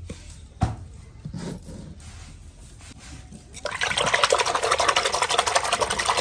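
A hand splashing and swishing rapidly through churned buttermilk in a clay pot to gather the butter. The fast, loud splashing starts about three and a half seconds in, after a single knock near the start.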